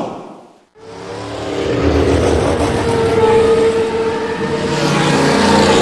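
Logo-intro sound effect: a brief whoosh, a moment of quiet, then a swelling rumble with a steady humming tone that builds and stays loud.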